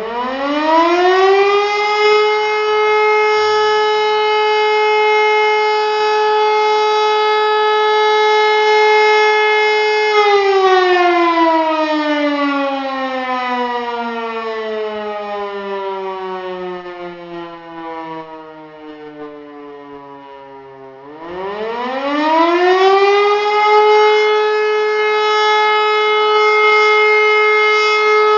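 E57 electric motor siren sounding the German 'Feueralarm' signal in a routine test. It is already winding up at the start and reaches a steady, rich tone that it holds for about ten seconds. It is then switched off and winds down in a long falling glide. About 21 seconds in it is switched on again, winds back up and holds its steady tone.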